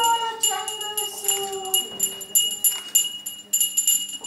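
Jingle bells shaken in a steady rhythm, about three shakes a second, under voices singing a song with long, falling notes.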